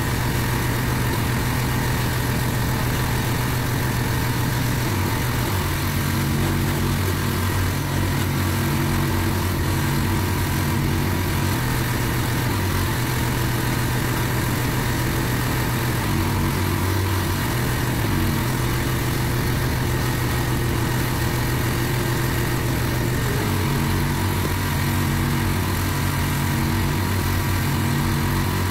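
Van-mounted pressure washer's engine running steadily under load, with the hiss of a lance jet spraying water onto block paving.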